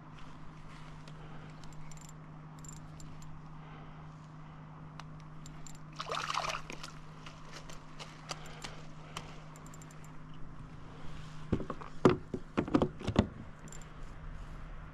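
A hooked fish splashing at the surface and knocking against a kayak as it is reeled in and lifted aboard: a quick run of sharp splashes and thumps near the end, with a shorter splash about halfway through. A steady low hum runs underneath.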